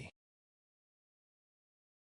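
Silence: a complete gap with no sound, after the last syllable of a voice cuts off right at the start.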